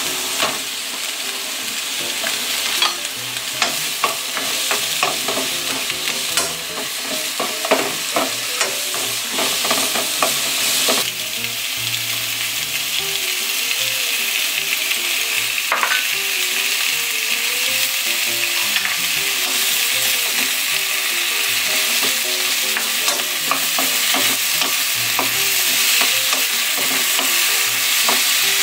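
Korean zucchini and sliced onion sizzling as they stir-fry in a nonstick frying pan: a steady frying hiss that grows louder in the second half, with scattered clicks in the first half.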